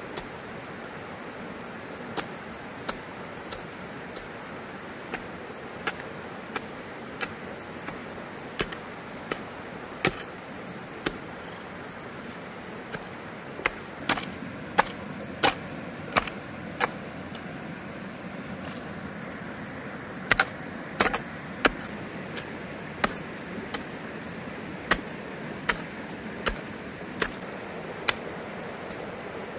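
Sharp strikes of a hand tool at irregular intervals, roughly one a second, over a steady background hiss. The strikes become louder and closer together about halfway through.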